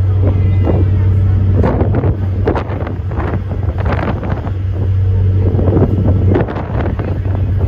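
A ferry's engine runs with a steady low drone, easing slightly about six seconds in, while wind buffets the microphone in irregular gusts.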